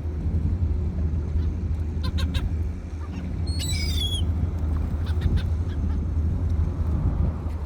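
A bird calling in a short burst of high notes about three and a half seconds in, over a steady low rumble.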